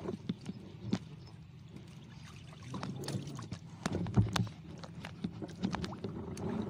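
Water sloshing and dripping as a fishing net is hauled up by hand out of shallow lake water, with many small splashes and ticks. A louder low thump comes about four seconds in.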